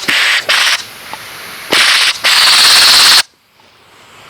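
Power impact wrench hammering in four short bursts, the last and longest cutting off abruptly, working on a rusted, seized exhaust bolt.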